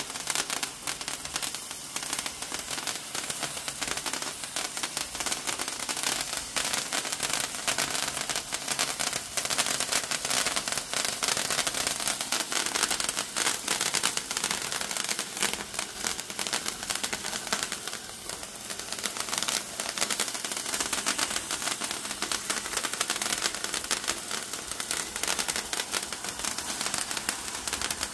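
Hand-held ice sparkler burning, giving a dense, steady crackle of tiny popping sparks.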